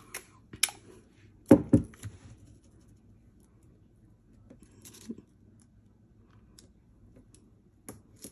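A desk tape dispenser in use: tape pulled and torn off, and the dispenser set down on the table with a loud double knock about a second and a half in. After that come soft rustles and light taps as paper pattern pieces are pressed and taped together.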